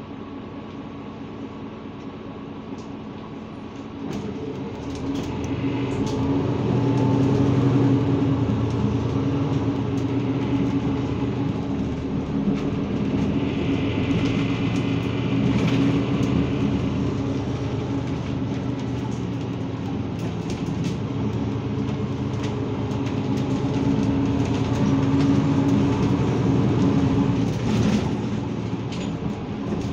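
Mercedes-Benz Citaro G C2 articulated bus heard from inside the cabin: a quiet steady hum while standing at a stop, then about four seconds in the engine runs up as the bus pulls away, and it carries on running steadily with rattles from the cabin as it drives along.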